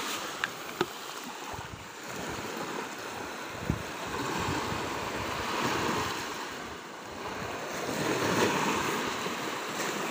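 Small surf washing onto a sandy beach, swelling louder twice, around the middle and near the end, with wind on the microphone. A few brief clicks in the first few seconds.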